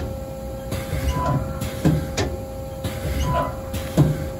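Haas HL2BB CNC lathe tool turret indexing: repeated cycles, each with a short tone and a clunk as the turret locks, coming about every two seconds over a steady machine hum.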